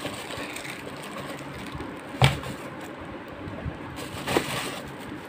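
A small clear plastic bag of parts being handled over packaging: two short crinkling knocks, about two seconds in and again about two seconds later, over a faint steady hiss.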